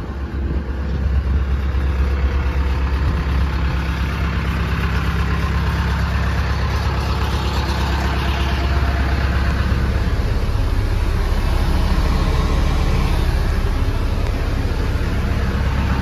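Tennant 830-II street sweeper truck's engine idling steadily, with a strong low hum; it gets louder about a second in.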